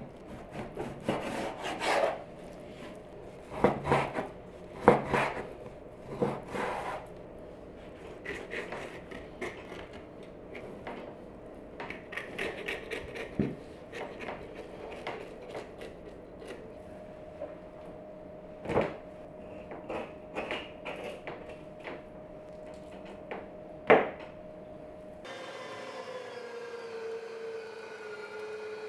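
Knife cutting and scraping meat off lamb rib bones on a wooden cutting board, with scattered sharp knocks of the blade and bones against the board. About 25 seconds in, an electric meat grinder's motor takes over with a steady hum that wavers slightly in pitch as it minces the meat.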